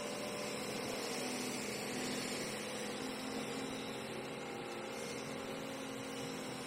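Hyundai R220LC excavator's diesel engine running steadily with a constant hum, with no clanks or bucket impacts.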